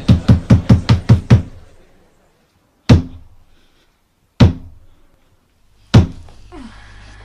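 The 'trois coups' of French theatre: a wooden staff (the brigadier) is struck on the stage floor in a fast roll of knocks, about five a second, that stops about a second and a half in. Three slow, loud single knocks follow, about a second and a half apart. The sequence signals that the curtain is about to rise and the play begin.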